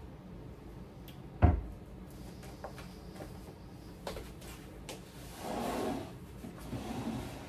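Upper kitchen cabinet door swung shut with one sharp bang about a second and a half in, followed later by a lighter click and a short rustle.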